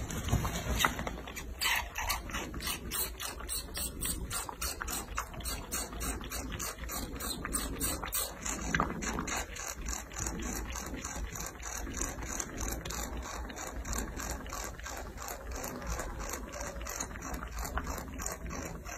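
A baby macaque suckling steadily from a baby bottle's rubber nipple. It makes a rhythmic run of short wet clicks, several a second, with each suck.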